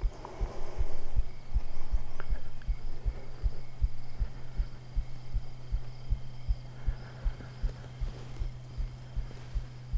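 A heartbeat picked up through a body-worn lavalier mic: dull, very low thumps in lub-dub pairs, about one and a half pairs a second, over a steady low hum.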